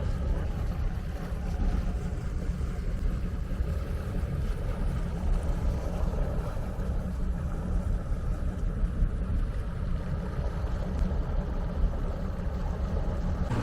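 Fishing boat's motor running steadily under way, a constant low rumble.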